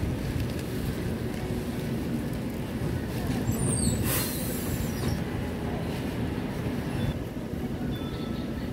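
Bus engine running with a steady low rumble, and a short hiss about four seconds in.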